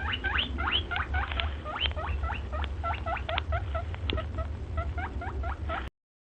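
A small animal squeaking in a quick, continuous run of short high squeaks, about five a second, over a low rumble; the sound cuts off suddenly near the end.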